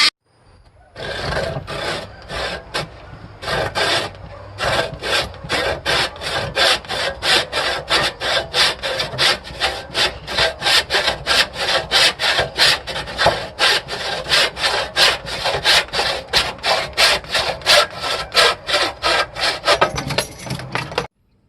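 A hand tool worked back and forth over a workpiece in a steady rhythm of scraping, rasping strokes, about two to three a second. The strokes start about a second in and stop abruptly near the end.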